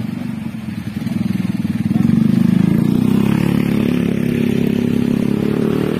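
Police motorcycle engines running as the escort bikes roll slowly past. The steady engine drone grows louder about two seconds in and eases off near the end.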